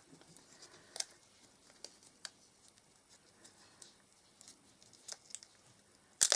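Light, scattered taps and clicks of small paper snowflakes and glue dots being handled on a craft table, with a sharper click near the end.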